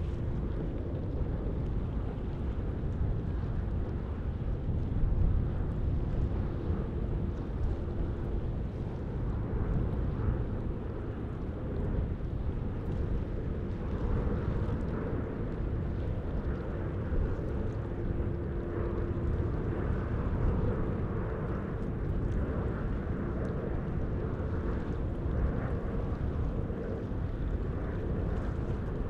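Jet airliner engines on approach to land: a steady rumble with a faint whine, growing a little brighter about halfway through.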